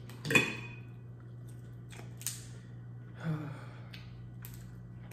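Eating sounds: a few short crackles and smacks from crab shell being pulled apart and food being chewed, the loudest right at the start, with one short low vocal sound about three seconds in. A steady low hum runs underneath.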